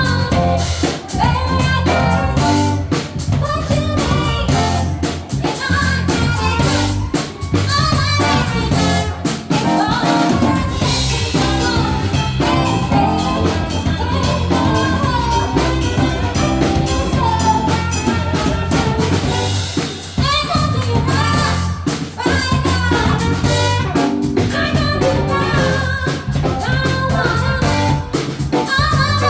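Live band playing an upbeat soul number, with a singer over drum kit and bass.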